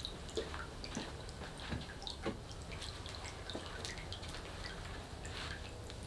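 Ultrasonic mist maker working in a jar of water, sputtering: small irregular drips and splashes as the water it throws up falls back, over a low hum.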